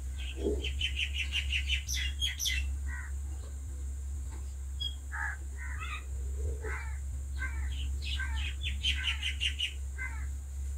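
Crows cawing again and again in short harsh calls that drop in pitch, with small birds chirping in quick runs of high notes. A steady low hum lies underneath.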